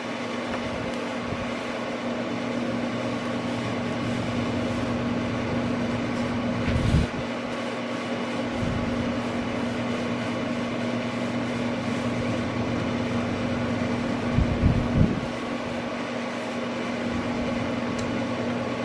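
Steady mechanical hum with a strong low tone, like a running fan or air-conditioning unit, with soft low thuds about seven seconds in and again about fifteen seconds in as the clothes iron is set down and moved on the ironing surface.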